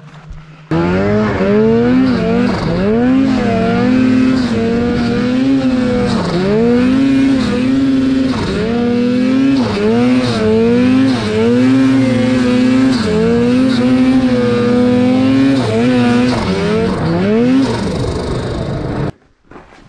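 Snowmobile engine revving up and down over and over as the sled is ridden hard through deep powder, its pitch climbing and dropping every second or two. The sound starts and stops abruptly.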